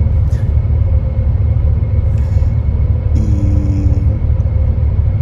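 Steady low rumble of an intercity coach under way, heard from inside the passenger cabin.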